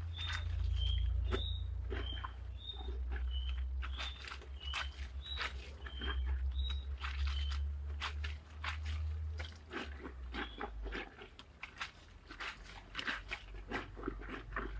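Clothes being hand-washed in a plastic basin: wet fabric scrubbed, squeezed and lifted, with irregular splashes and sloshing water. Through the first half, a bird gives short high chirps about twice a second, and wind rumbles on the microphone until a little past halfway.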